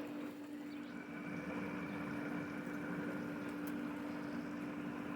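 Pool filter pump motor running, a steady hum while it draws water through the vacuum hose.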